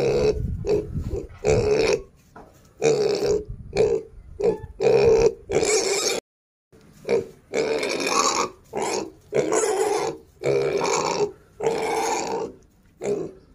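Young pig grunting close up: a long run of short, loud grunts, one or two a second, with a brief break about six seconds in.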